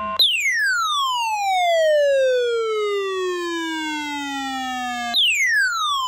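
Midland NOAA weather radio's alert siren sounding for a received weather warning: a loud electronic tone sweeping down in pitch over about five seconds, then jumping back up high and starting to fall again.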